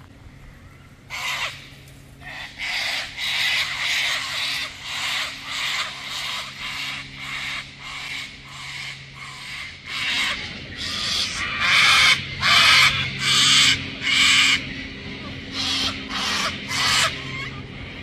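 A bird calling loudly in a long series of quick repeated calls, building to a peak and then dying away near the end.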